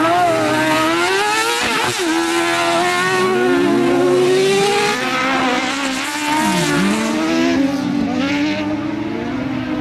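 Twin Suzuki-engined autocross buggy racing flat out on a dirt track, its high-revving engine note climbing and dropping again and again as it goes through gear changes and lifts off for corners.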